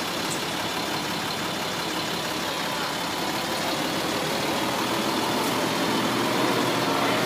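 A large engine running steadily, getting slightly louder near the end.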